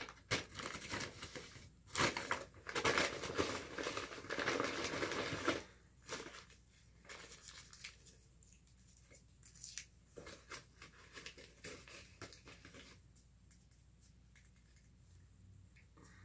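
Paper takeout bags and food wrappers crinkling and rustling as food is unpacked, loud and busy for the first five seconds or so, then fainter, scattered handling.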